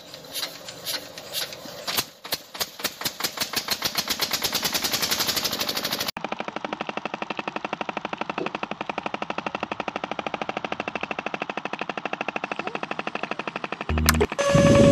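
Small motor-driven mechanism of a homemade model drilling rig clattering: rapid clicks that speed up over the first several seconds, then settle into a steady fast rattle.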